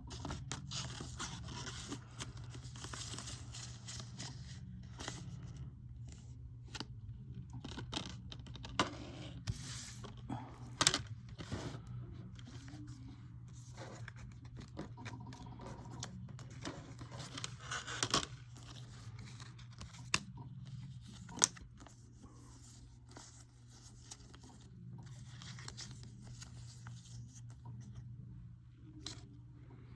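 Hands handling a reversible paper slip cover and a plastic 4K disc case: paper sliding and scraping with scattered sharp clicks and taps, over a steady low hum.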